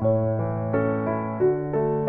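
Background piano music: a gentle melody of held notes that change about every half second over a low sustained bass.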